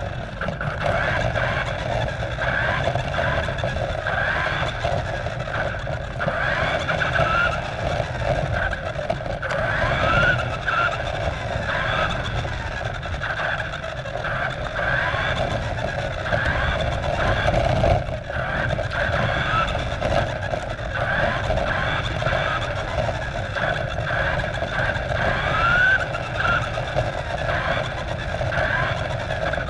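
Remote-control car's motor and drivetrain whining as it drives, the pitch rising and falling repeatedly with changes of speed, over a steady rumble of its tyres on asphalt, heard from a camera mounted on the car itself.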